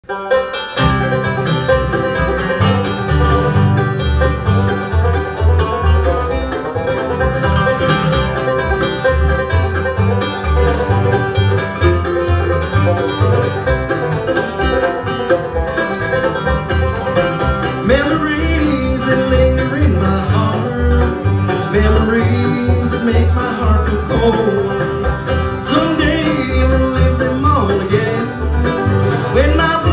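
Bluegrass band playing: mandolin and acoustic guitar over a plucked upright bass keeping a steady beat. The opening is instrumental, and a man's voice comes in singing about halfway through.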